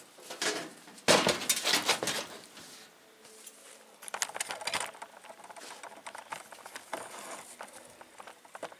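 Galvanized sheet-metal insert turned and dropped into the dog feeder: a loud metal clattering and scraping about a second in, then lighter clinks and rattles of the sheet metal being handled.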